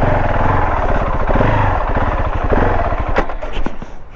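Off-road motorcycle engine running under throttle, rising and falling in revs, then easing off near the end, heard through a helmet-mounted camera's microphone with no wind protection.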